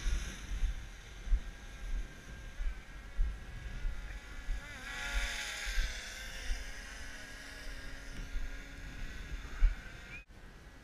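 Wind rumbling on a body-worn action camera's microphone, with regular thumps of walking footsteps about one and a half a second through dry prairie grass, and a louder hiss about halfway through.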